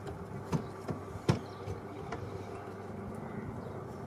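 AgustaWestland AW109SP twin-engine helicopter flying past at a distance, a steady drone of turbines and rotor. Two sharp knocks come about half a second and just over a second in.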